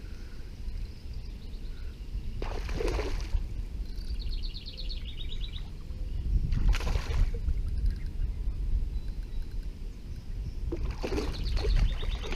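A hooked smallmouth bass splashing at the surface three times, each a short rush of spray, over a low steady rumble. Fast ticking trills sound between the splashes.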